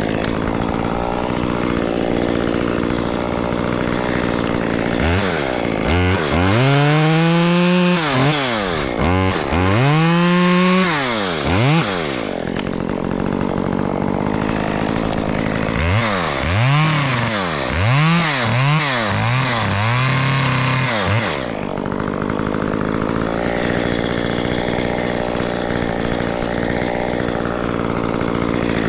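Two-stroke chainsaw running through the whole stretch, cutting wood in a white oak tree. The engine runs steadily at first, then is revved up and down several times in two spells, about six and sixteen seconds in, before settling back to steady running.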